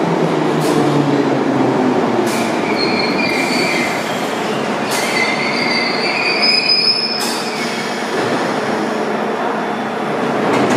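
London Underground 1972 Stock tube train braking into the platform and coming to a stand. A low falling whine at the start gives way to high-pitched wheel and brake squeals through the middle, over a steady rumble, with several sharp clacks.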